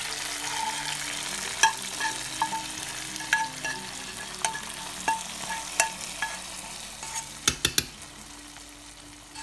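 Hot tempering oil with fried dried red chillies, onion, garlic and cumin seeds poured from a frying pan onto a pot of khichuri, sizzling and slowly dying down. Light metal clinks of a spoon scraping against the pans come through it, several in a row near the end.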